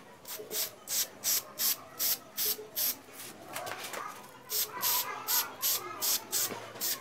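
Aerosol spray paint can spraying matte black paint in short, quick bursts of hiss, about three a second, with a break of a second or so in the middle.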